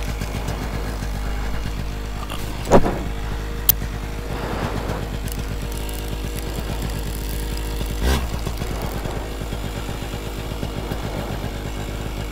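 Paramotor engine running steadily with a low hum, briefly getting louder nearly three seconds in and again around eight seconds in.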